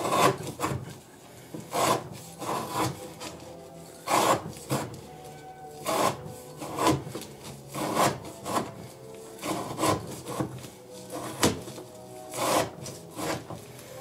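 An Elmax-steel knife blade slicing through rope in a test, about a dozen short rasping cuts spaced a second or two apart, often in close pairs. Many cuts now take two strokes, a sign that the edge is dulling.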